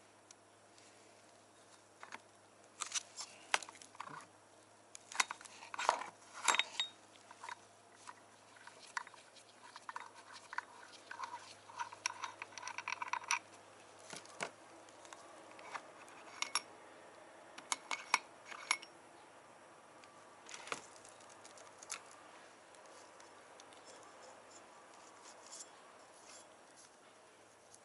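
Small metal engine parts and hand tools clicking and clinking as they are handled and set down, in irregular bursts, with a quick run of ticks about halfway through.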